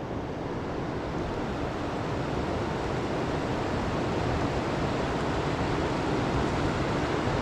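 Steady rushing of a fast-flowing river current, an even unbroken noise that holds through the whole stretch.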